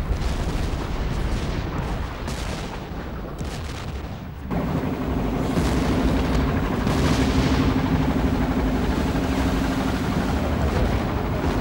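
Battle sound effects of gunfire and shell explosions. About four and a half seconds in, a steady low hum joins under the continuing noise.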